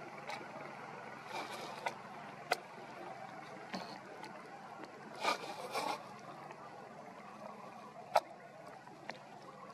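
Steady outdoor background hiss with a few sharp clicks and two brief rustling scrapes.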